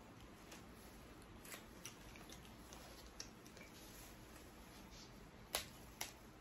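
Faint clicks and small cracks from eating snow crab legs by hand, with two louder snaps about half a second apart near the end.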